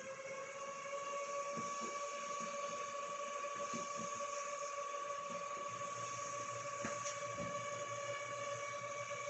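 NWT0710 washing machine's motor whining with one steady pitched tone, rising slightly over the first two seconds and then holding, with light irregular knocks underneath. It is a noise the owner cannot make sense of.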